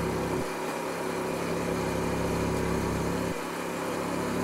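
Four-speed motorcycle engine running steadily while riding. The deep rumble underneath falls away about half a second in, comes back, and falls away again near the end.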